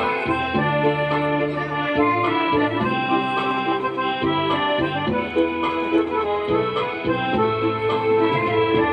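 Instrumental passage of Malay zapin dance music, an accordion carrying the melody in held notes over sustained low bass notes, with no singing.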